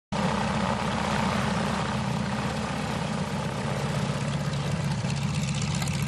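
Radial piston engine of a vintage propeller trainer aircraft running steadily, with an even low drone.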